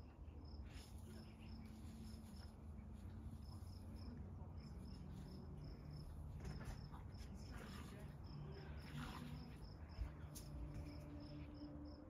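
Faint cricket chirping: short high chirps about three a second, pausing now and then, over a low outdoor rumble with faint rustles and a sharp click about ten seconds in.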